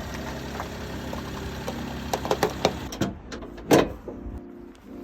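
Daihatsu Tanto Exe's KF three-cylinder engine idling just after a start, with a few light clicks about two seconds in. About three seconds in the engine sound drops away, and a loud short thump follows.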